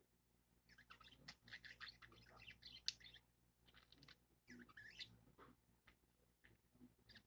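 Small pet bird chattering in soft, quick chirps, in two runs: one about a second in, another around four to five seconds, with a few light clicks among them.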